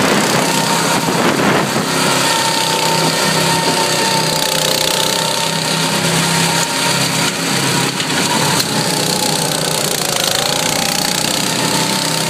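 Small go-kart engines running hard, a loud, steady drone with a wavering whine, heard from on board a kart.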